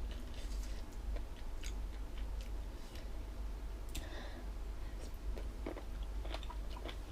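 A person chewing jellyfish salad with the mouth close to the microphone: irregular small crunchy clicks and wet squelches as the firm, chewy jellyfish is bitten and worked.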